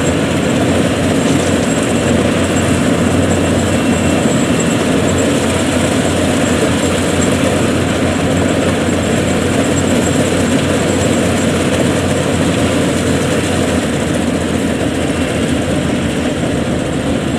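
Yanmar 82 rice combine harvester running steadily as it cuts and threshes, its engine and machinery making an even, unbroken noise.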